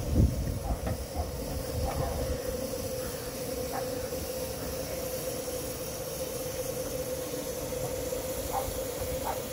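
Miniature 15-inch-gauge steam locomotive Whillan Beck standing in steam on a hand-pushed turntable, hissing steadily with a steady mid-pitched tone under the hiss. A heavy clunk right at the start, then a few light knocks.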